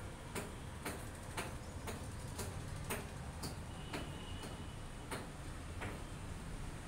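Fingernail clicks from picking nits out of wet hair: a run of small sharp clicks, irregularly spaced about two a second.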